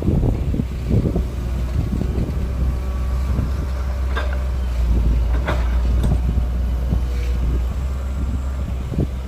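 Hydraulic excavators digging, their diesel engines running with a steady deep rumble. A few sharp metallic knocks come around four and five and a half seconds in.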